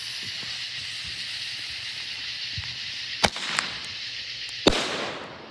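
A reloadable artillery-shell firework's fuse hissing and spitting sparks, with two sharp cracks about three and four and a half seconds in, the second the loudest. The hissing dies away near the end.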